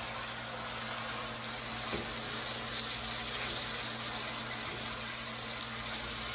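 Diced potatoes frying in bacon grease in a skillet: a steady sizzle as they are stirred with a spatula, over a steady low hum.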